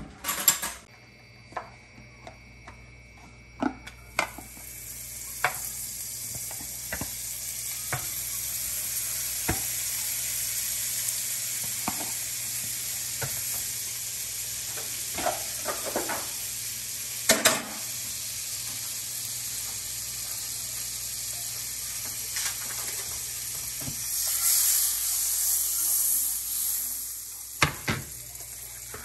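Butter sizzling as it melts and foams in a hot nonstick frying pan: a steady hiss that starts a few seconds in and swells louder near the end. Scattered light knocks and clacks of the pan and utensils, the sharpest near the start and about halfway through.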